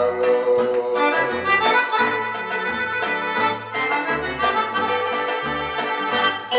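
A Greek popular song playing from a 45 rpm vinyl single on a turntable: the singer ends a line about a second in, then an instrumental break with melody instruments over a changing bass line.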